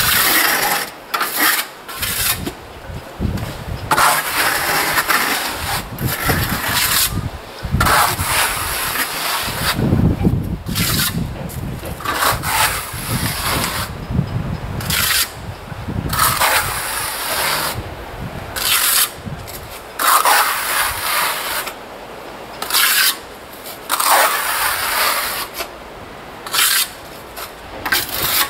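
Steel trowel scraping in repeated strokes, about one every second or two, as skim-coat adhesive is smoothed over fiberglass mesh on a wall.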